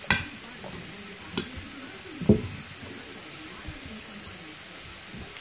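Steady hiss of background noise, broken by a sharp click at the start, a lighter click about a second and a half in, and a louder knock a little after two seconds.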